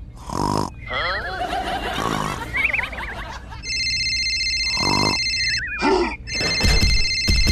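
Electronic phone ringtone, a steady trilling tone that rings for about two seconds, breaks off, and starts again near the end. Before it come short voice-like sounds and a few wavering, sliding cartoon-style tones.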